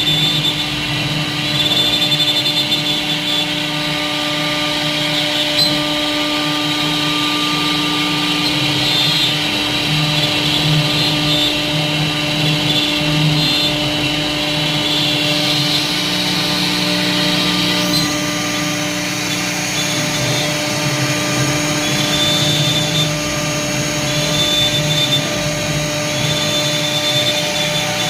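CNC router with a 4.5 kW spindle motor running, giving a steady whine with a high component that changes about eighteen seconds in.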